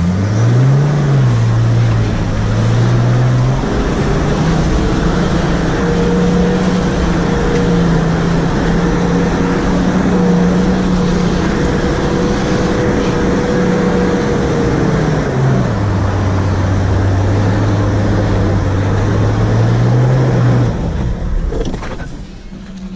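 Nissan Patrol GQ's TD42 straight-six diesel engine pulling under load on a muddy climb, heard from inside the cab. Engine speed rises about four seconds in and holds for around ten seconds, drops back, then eases off near the end.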